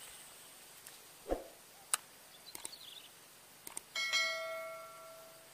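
Subscribe-button animation sound effect: two quick mouse clicks, then a bright bell ding that rings and fades over about a second and a half. Before it come a few faint clicks and a soft thump.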